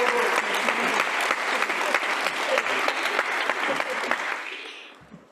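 Audience applauding, many hands clapping, dying away about a second before the end.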